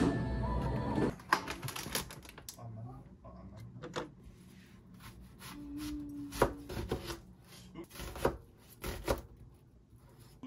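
Scattered light knocks and clicks of objects being handled, irregular and spaced out, after a denser stretch of sound stops about a second in.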